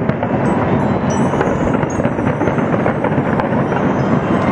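A large fireworks display: a dense, loud, unbroken crackle of many bursts and bangs going off at once, with faint high whistling tones over the top.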